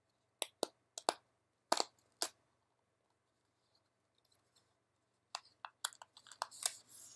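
Small cardboard headphone box being handled and opened: a few sharp taps and clicks in the first two seconds, a quiet pause, then a quick run of clicks and a brief rustle of packaging near the end.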